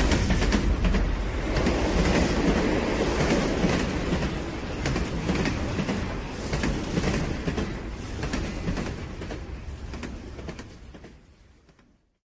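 Loud, continuous rumbling and clattering noise, with many sharp clicks, that fades away steadily over about ten seconds and drops to silence just before the end.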